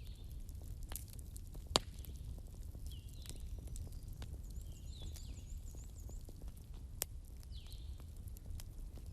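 Wood bonfire burning with a steady low rumble and constant small crackles, and two sharper pops, one a little under two seconds in and one about seven seconds in. Faint high chirping calls sound now and then, with a quick run of short chirps midway.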